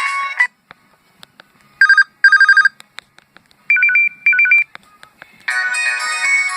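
LG 237C cell phone's ringtones through its small speaker: a melodic ringtone cuts off about half a second in, then two short trilling ring bursts, two more trilling bursts at a different pitch, and a new melodic ringtone starts near the end. Faint clicks sound in the gaps.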